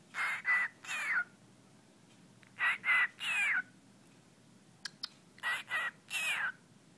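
Cockatiel mimicking speech, saying "I love you" three times a couple of seconds apart in a high voice, the last syllable of each phrase sliding down in pitch. Two short clicks come just before the third phrase.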